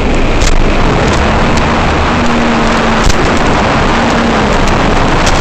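FPV quadcopter in flight: a steady, loud rush of wind and propeller noise on its microphone, with scattered sharp clicks and a faint motor hum that comes and goes.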